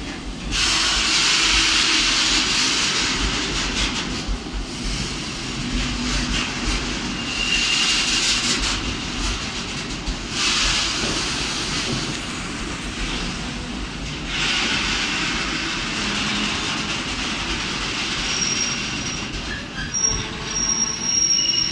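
Goods train of petroleum tank wagons rolling past close by: a steady rumble and rushing of steel wheels on the rails. Brief high wheel squeals come about seven seconds in and again near the end.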